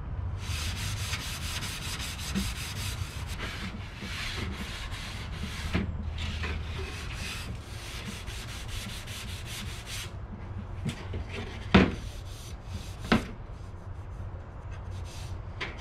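Sanding block rubbed by hand along a wooden 1x6 board: quick, even back-and-forth rasping strokes to smooth the wood, thinning to a few slower strokes in the last third. A couple of sharp knocks come near the end, the first of them the loudest sound.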